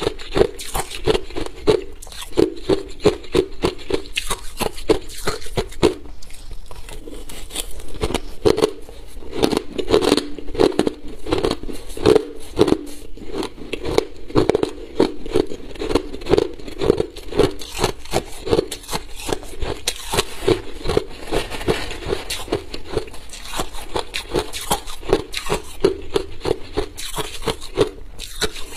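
Crushed ice being chewed close to a clip-on microphone: a steady run of crisp crunches, about two chews a second.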